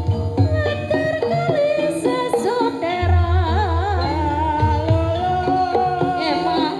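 Live Javanese gamelan music with a singer's wavering, vibrato-laden melody over held metallic tones; a deep low note comes in about three seconds in and holds.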